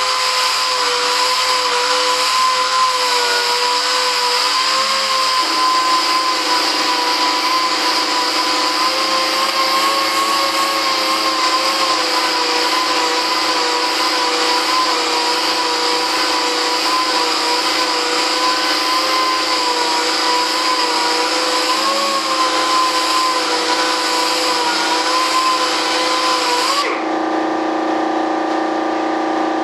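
Air-powered DA (dual-action) sander running against the fuselage of a large RC jet, a steady whine that wavers slightly in pitch over a loud hiss. About 27 seconds in the sander stops, leaving a lower steady hum.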